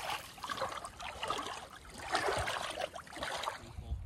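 Shallow stream water splashing and trickling in an irregular patter, dying away near the end.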